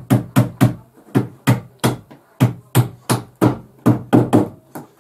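Claw hammer driving small nails into the back panel of a flat-pack desk unit: a steady series of sharp blows, about three a second, with brief pauses about one and two seconds in.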